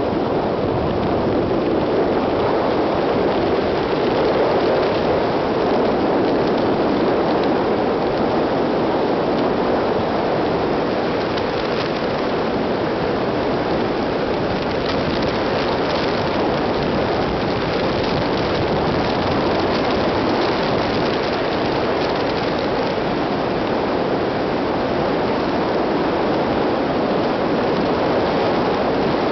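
Steady tyre and wind noise of a car travelling at highway speed, heard from inside the cabin.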